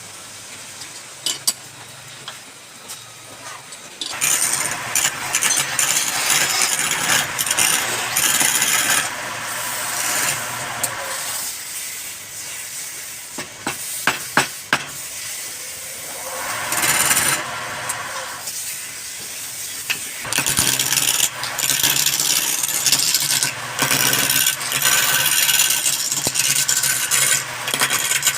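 Power tool working wood, quiet at first and then running loud about four seconds in, in long noisy spells with brief lulls and a few sharp clicks in between.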